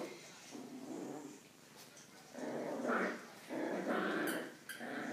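Coton de Tulear dogs play-growling while tugging at a toy: a series of growls, softer at first and louder in the second half.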